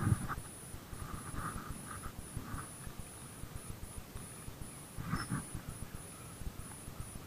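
Close handling noise from rod and spinning reel: scattered knocks and rustling, a sharp knock at the very start and another pair of knocks about five seconds in. Behind it, a very high thin chirp pulses on and off steadily.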